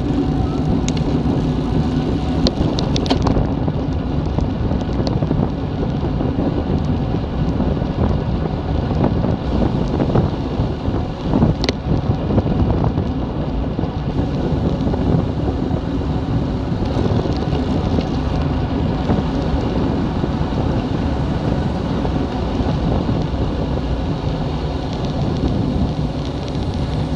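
Wind buffeting the microphone of a camera riding on a road bike descending at speed: a loud, steady, low rushing rumble, with a few sharp clicks, the clearest about twelve seconds in.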